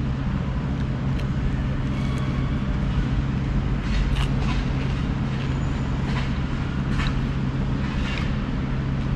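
Steady city traffic rumble with a constant low engine drone, and a few faint clicks scattered through it.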